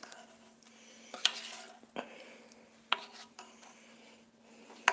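A utensil knocking and scraping lightly against a cooking dish: four short knocks about a second apart, with faint rubbing between.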